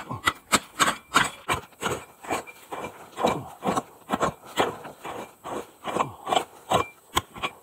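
A prospecting pick chopping into rocky, gravelly ground in quick repeated strikes, about four a second, with stones and dirt scraping. The sound of digging out a metal-detector target.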